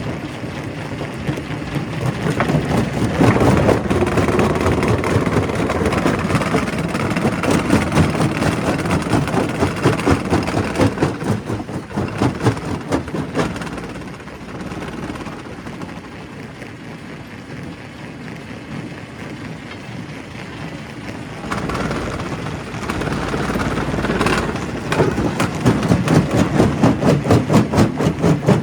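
Primary rock crusher at a quarry running under load, its heavy machinery noise swelling and easing as rock goes through. Near the end the sound turns into a fast, even pulsing of about three to four beats a second.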